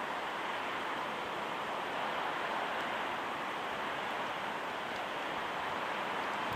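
Steady wind blowing, an even rushing hiss with no gusts or breaks.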